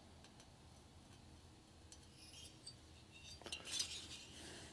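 Faint scraping and light metallic clinks as a cast-iron Harley Sportster cylinder is turned over in the hands, with fingers and palm brushing across its cooling fins. The sounds start about two seconds in and are loudest a little after three and a half seconds.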